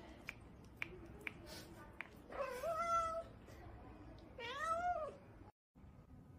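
Grey-and-white cat meowing twice, about two seconds apart, begging for a piece of food held above it. The first meow rises and then holds; the second rises and falls.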